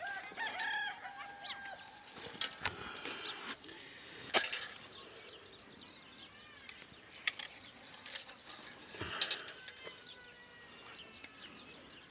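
A rooster crows at the start, a held call of about a second and a half, and chickens call and cluck afterwards. A few sharp knocks are scattered through the rest.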